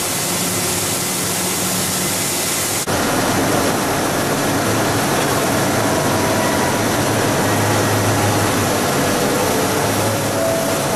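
Steady machine noise of a running plastic extrusion and die face pelletizing line. It changes abruptly about three seconds in, after which faint whining tones run through the noise.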